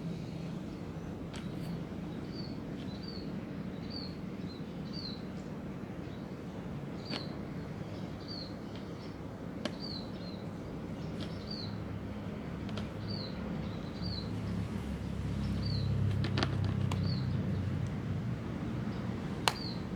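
Short, high bird chirps repeated about once or twice a second over a steady low rumble of background noise, which grows louder near the end, with a few sharp clicks.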